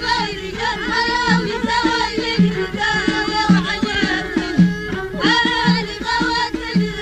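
Amazigh folk song from the Middle Atlas: pitched melodic lines over a steady, regular drum beat.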